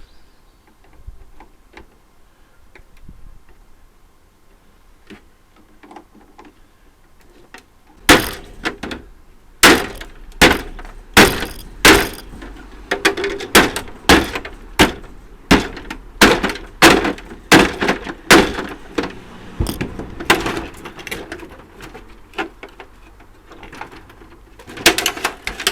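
Faint handling clicks, then from about eight seconds in a run of loud, sharp strikes, roughly one or two a second and irregularly spaced, as a portable air conditioning unit is knocked apart for scrap.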